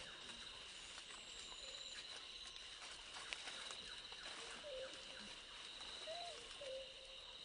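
Forest ambience: a steady high insect drone, with a few short low hooting calls in the second half.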